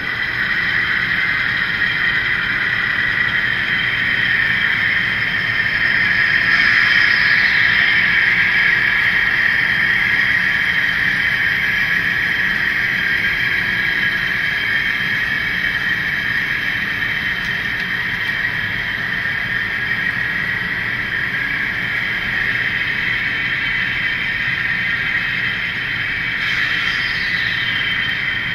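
Model railroad train running on the layout, pulled by model diesel locomotives: a steady hum and whine of the motors and wheels rolling on the rails, with a whine that drops in pitch twice, about seven seconds in and near the end.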